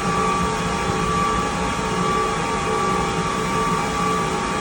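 Steady drone of server-room equipment cooling fans and air handling: an even rush of air with a few steady whining tones over it.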